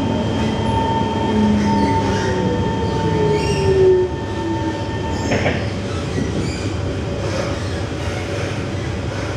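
Singapore MRT train heard from inside the carriage as it brakes into a station: the motor whine slides down in pitch and then cuts off with a click about five seconds in as the train stops, leaving a steady hum.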